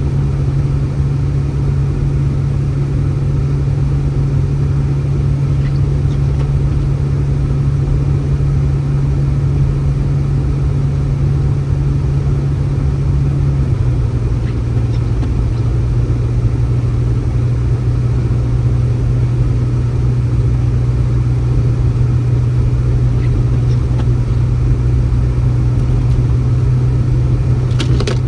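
A steady low motor drone with a loud, even rumble underneath; the hum drops slightly in pitch about halfway through.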